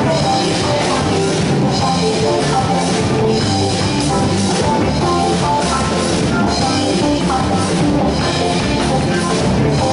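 Loud rock music with a drum kit and guitar, playing steadily with a regular beat.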